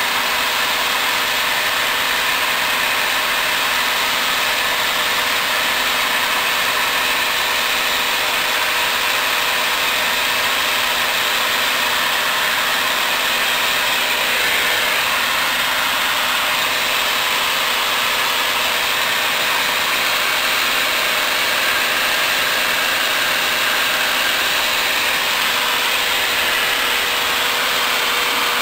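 Single-engine propeller airplane in cruise flight, heard from inside the cockpit: a steady, unchanging drone of engine, propeller and wind noise.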